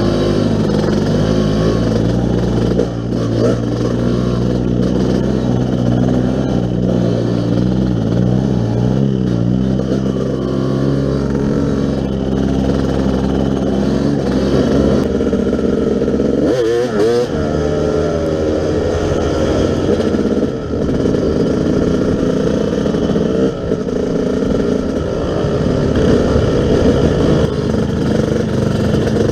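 Yamaha YZ250 two-stroke dirt bike engine running under constantly changing throttle, its pitch rising and falling. About seventeen seconds in, the throttle is briefly shut off and then reopened, so the pitch drops sharply and climbs back.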